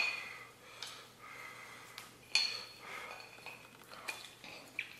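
Chopsticks clinking against a bowl: a handful of sharp clinks with a short ring, the loudest at the very start and about two and a half seconds in.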